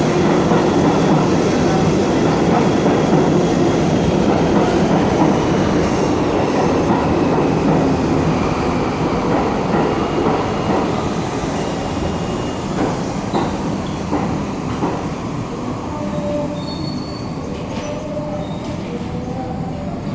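New York City subway train running along the track, with a steady rumble and clatter. A faint whine falls in pitch during the first half, the noise eases off gradually, and short high squeals come in over the last several seconds.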